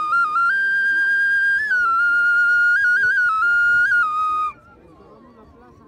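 Small turtle-shaped flute blown in one long, pure whistling note that steps up and down between a few pitches, with quick little flicks between notes, and stops abruptly about four and a half seconds in.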